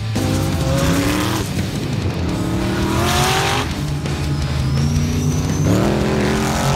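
Turbocharged dune buggy and side-by-side engines revving hard under full throttle, the pitch climbing steeply three times as the vehicles accelerate through sand, with music underneath.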